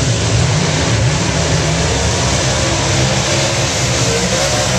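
Two drag racing cars' V8 engines revving hard during burnouts at the starting line, the pitch rising and falling unevenly throughout.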